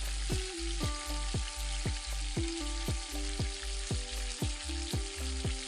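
Eggplant wedges shallow-frying on low heat in mustard oil, a steady sizzle and crackle of bubbling oil. Under it, background music with a steady beat of about four low thumps a second.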